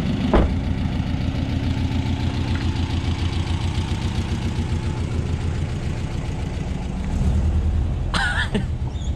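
A vehicle engine idling with an even low beat, swelling a little louder about seven seconds in. There is a single short knock just after the start.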